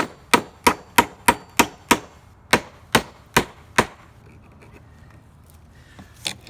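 Hammer driving a 16-penny nail into a wooden 2x4: about eleven quick, sharp blows, roughly three a second with a short pause partway, then the hammering stops about four seconds in.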